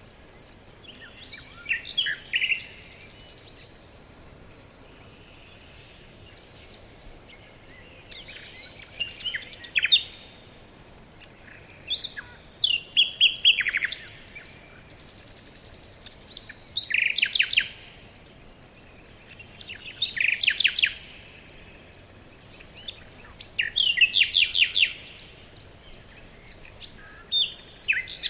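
A songbird singing: short phrases of quick, high, repeated chirping notes, each about a second long, coming about every three to four seconds over a faint steady background hiss.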